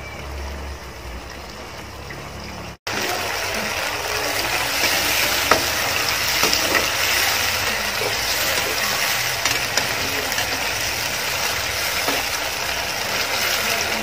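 Marinated squid frying in hot oil in a steel pan, stirred with a metal slotted spoon: a steady sizzle with scattered pops and crackles, as squid is prone to spattering in the oil. Quieter for about the first three seconds, then a loud sizzle for the rest.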